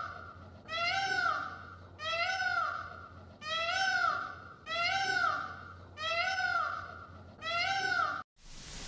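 Cat meowing over and over, about seven calls roughly a second apart, each rising then falling in pitch. The calls stop at a sudden cut near the end.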